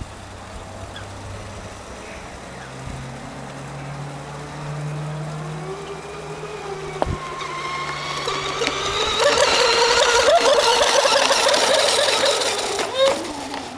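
RC mono racing boat's Feigao 3600 brushless electric motor and three-blade propeller running at speed: a high, wavering whine that builds as the boat comes near, is loudest for a few seconds as it passes, then fades off near the end.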